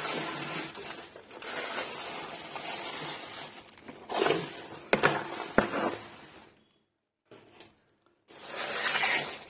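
Plastic bags crinkling and rustling as things are pushed aside by hand, with two sharp knocks about five seconds in and a brief pause near the end.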